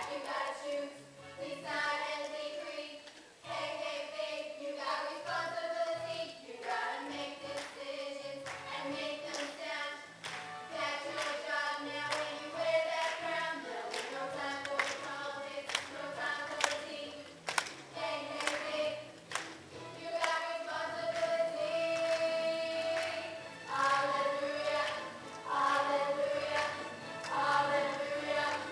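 Music with a choir of voices singing, punctuated by many sharp percussive hits.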